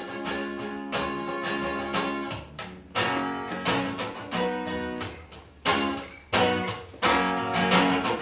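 Acoustic guitar strummed in a steady rhythm, chords ringing between the strokes, in an instrumental break between sung verses.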